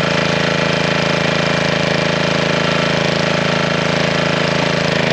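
Honda small engine on a gas log splitter running steadily at a constant speed.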